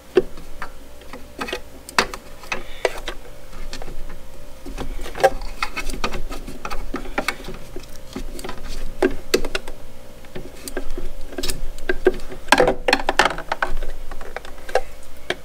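Irregular clicks, taps and scrapes of a Phillips screwdriver and hard plastic as a small screw is worked into a plastic battery cover.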